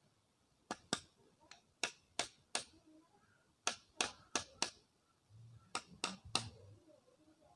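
Hand plane being tapped with a hammer to set its blade: about a dozen short, sharp taps in three quick groups. The taps nudge the blade so its cutting edge projects evenly across the sole.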